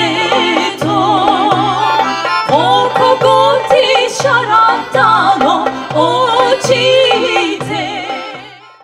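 Balkan folk song performed live: women singing with wavering vibrato over accordion, whose bass notes repeat in a steady pulse. The music fades out near the end.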